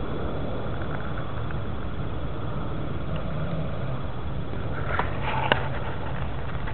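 Steady low rumble on the microphone, with a short cluster of clicks about five seconds in and one sharp knock just after, as a puppy carries a plastic pot in its mouth and it knocks against the ground.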